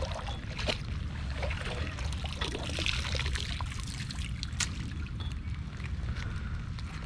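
Rain with water trickling and splashing, over a steady low rumble and scattered sharp ticks.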